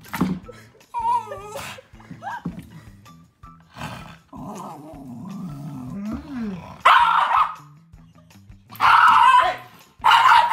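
Frustrated Shiba Inu growling and snarling: a wavering high whine about a second in, a long rising-and-falling growl, then three loud sharp barks near the end.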